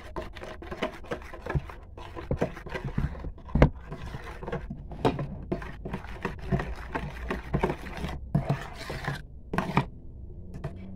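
Spoon scraping and clicking against the sides of an enamel basin as a thick cream-and-egg batter is stirred by hand, in quick, irregular strokes. There is one louder knock about three and a half seconds in, over a steady low hum.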